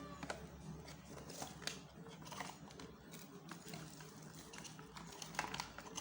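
Scattered light clicks and soft rustles at irregular intervals over a faint low hum, typical of handling noise.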